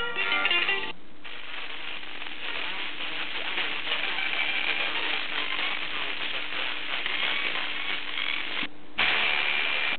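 Sony XDR-F1HD FM tuner: music from a station ends about a second in, the audio drops out briefly as the tuner steps to 100.7 MHz, then steady static hiss with only faint traces of a weak, distant station underneath. Near the end the audio drops out briefly again and the hiss returns louder.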